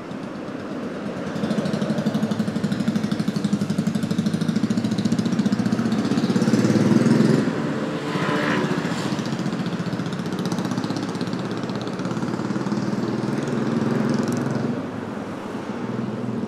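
A motor vehicle's engine running close by, growing louder about a second and a half in and easing off a little after about seven seconds.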